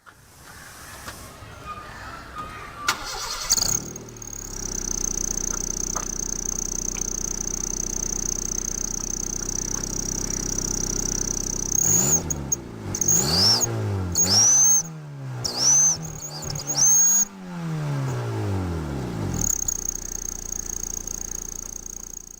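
Car engine starting and idling, with a steady high whistle from a turbo whistler fitted in the exhaust tailpipe. In the middle it is revved about four times in quick succession, and the whistle cuts out and sweeps back up with each rev before the engine settles back to idle with the whistle steady again.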